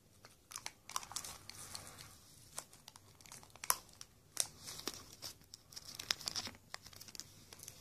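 Close-up handling of small fishing-reel parts and a replacement ball bearing: a run of light clicks and rustling, with one sharper click a little before the middle.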